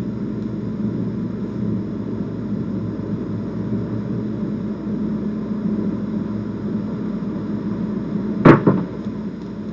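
A pair of dice thrown down a craps table, landing with one sharp knock about eight and a half seconds in, over a steady background hum.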